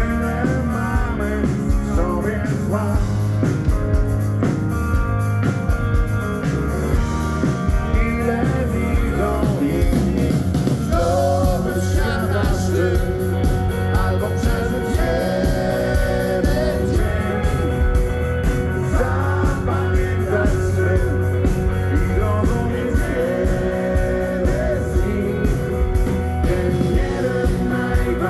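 Rock band playing live: electric guitars, bass and drums, with a male lead singer's voice over the band.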